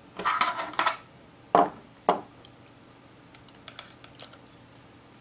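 Metal binder clip handled and clamped onto a stainless steel kitchen chopper/scraper: a brief scratchy handling sound, then two sharp clicks about half a second apart, followed by a few faint taps.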